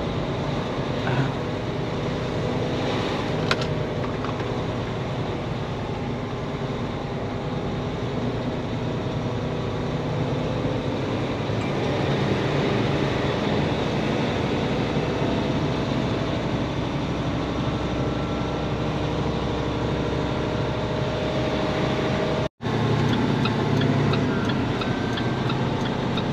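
Semi truck's diesel engine running steadily while driving, heard inside the cab with road noise. The sound cuts out for a split second near the end.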